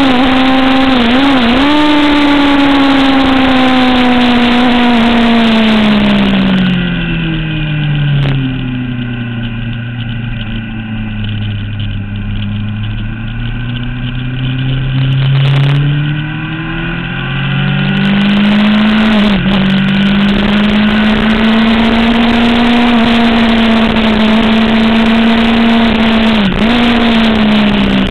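Sport motorcycle engine heard onboard at high revs with wind noise. About six seconds in the engine note falls away as the bike slows for a corner and runs low through it, then climbs again from about 15 seconds. Brief dips in pitch come near the start, about 19 seconds in and near the end.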